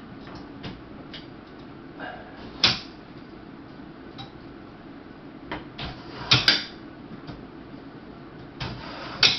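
Sharp knocks and clicks of a plastic-and-steel folding table being handled. The loudest knock comes about three seconds in, a quick pair about six seconds in and another near the end, with lighter clicks between, over a steady low hum.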